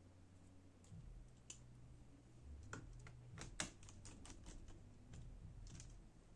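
Faint, scattered small clicks and taps of laptop parts and a small screwdriver being handled during reassembly, with a quick run of sharper clicks in the middle.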